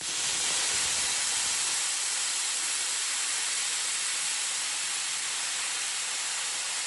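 Bestarc BTC500DP plasma cutter torch cutting through a flat aluminum bar: the arc and cutting air make a steady hiss.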